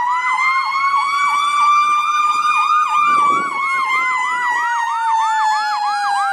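Emergency vehicle sirens: a fast yelp, about three to four sweeps a second, sounding together with a slow wail. Both fall in pitch from about three seconds in, with a brief low rumble of a vehicle going by.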